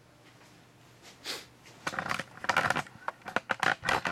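A quick run of sharp clicks and clatters in two dense bursts, starting about two seconds in.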